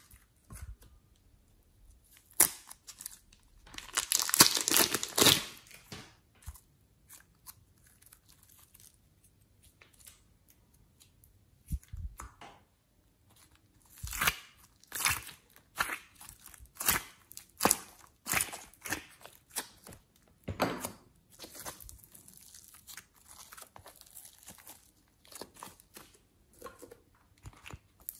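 Hands stretching and peeling sticky slime and soft clay out of a plastic compartment tray. A long stretch of crackly noise comes a few seconds in, then a run of short sticky crackles about once a second.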